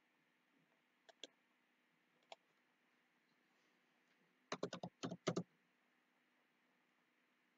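Computer keyboard keys tapped in a quick run of about eight strokes, starting about four and a half seconds in, after a few single clicks earlier.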